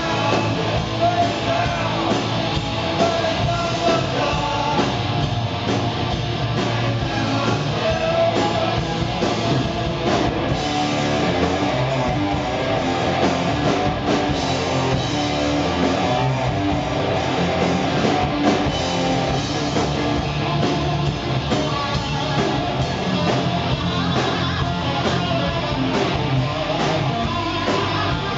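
Rock band playing live: electric guitar leading over bass guitar and drum kit.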